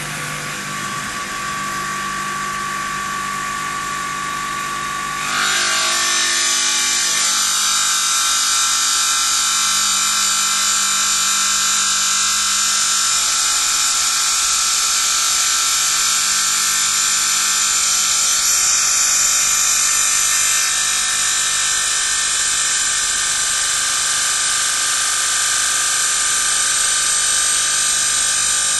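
CNC bridge saw with a diamond blade cutting stone: a steady, high, whining grind with many held tones. About five seconds in it gets louder and harsher, then runs on steadily.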